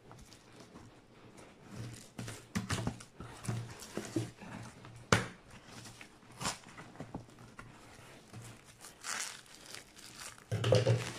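Bubble wrap crinkling and a cardboard box being handled as a taped parcel is cut open with scissors, with a few sharp clicks about halfway through and a louder rustle near the end.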